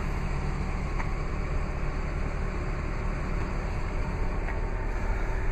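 Steady low background rumble with a hiss above it, unchanging throughout.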